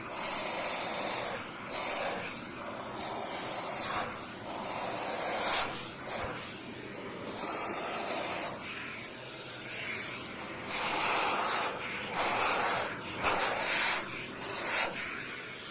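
Shark Powered LiftAway vacuum sucking air through a hose attachment being worked over a cat tree, a rushing hiss that surges and drops back in irregular spells of a second or so.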